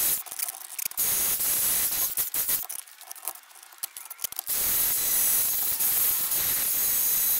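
Cordless angle grinder grinding the cut ends of steel tubing, a steady grind. It stops for about two seconds in the middle, leaving a few clicks and knocks as the tube is shifted in the vise. The grinding starts again about four and a half seconds in.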